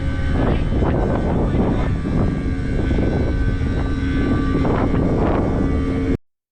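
Steady engine-like drone of heavy machinery with a held whine over a deep rumble, cutting off suddenly near the end.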